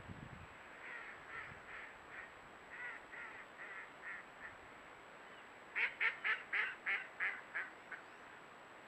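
Ducks quacking: a soft, scattered run of quacks, then about six seconds in a louder series of about eight quacks that come quicker and fade away.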